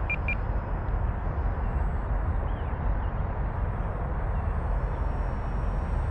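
A steady low rumble fills the field recording, under a faint high whine from the FMS Zero's small electric motor flying at a distance. A quick run of short high beeps ends just after the start.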